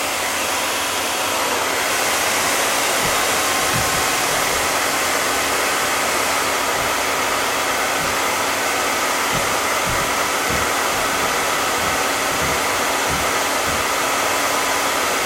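Handheld blow dryer running steadily: a constant rush of air over a steady motor whine. It is drying the glue that holds down a stocking wig cap.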